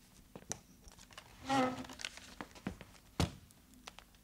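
Leather briefcase being handled: a few small clicks and knocks, with a sharp click about three seconds in. A short buzz comes about one and a half seconds in.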